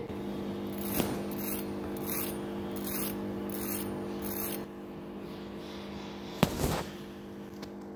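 Fork tines scraping across the crisp fried breadcrumb crust of a chicken cutlet in repeated crunchy strokes, about six in the first four and a half seconds, showing how crisp it has fried. A single sharp knock comes about six and a half seconds in.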